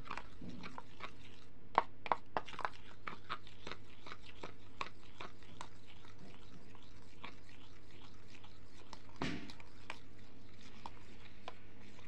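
Metal spoon stirring and scraping a thick, gritty paste in a plastic bowl: irregular clicks and scrapes, a few a second, loudest in a short run about two seconds in.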